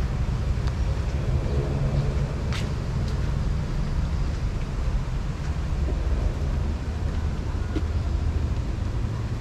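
Steady low rumble of city traffic, with a brief sharp click about two and a half seconds in.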